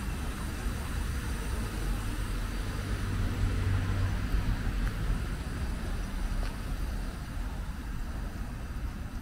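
Wind buffeting the microphone: an uneven low rumble that swells about a third of the way in, over a steady outdoor hiss.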